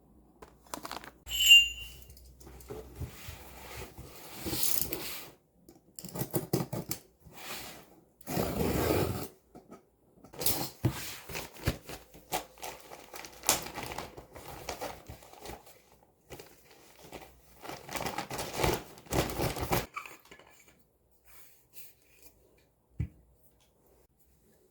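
Irregular handling noises: packaging crinkling and tearing, with scrapes. A sharp clink about a second and a half in is the loudest sound; the rustling dies away after about twenty seconds, leaving one small knock near the end.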